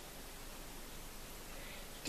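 Faint steady hiss of room tone with no distinct events.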